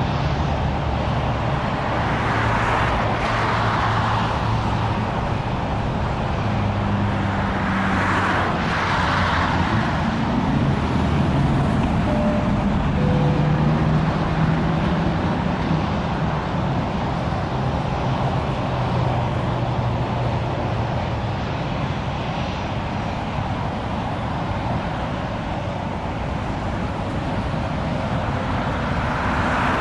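Steady road traffic noise with vehicles passing, swelling about 3 and 8 seconds in and again near the end, over the low rumble of a distant jet airliner on approach.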